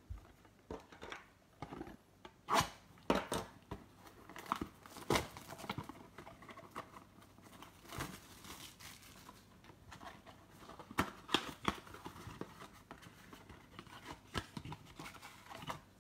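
A trading-card blaster box being torn open by hand: its wrapping crinkling and tearing and the cardboard ripping, in a string of irregular rips and crackles, with the foil packs then slid out.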